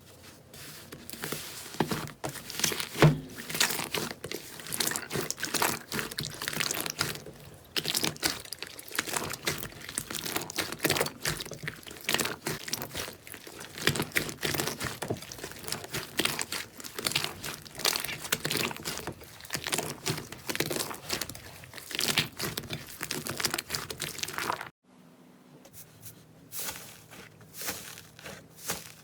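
Slime crackling and popping as it is worked, a dense run of small crunchy clicks. A little before the end it breaks off abruptly, then resumes, sparser.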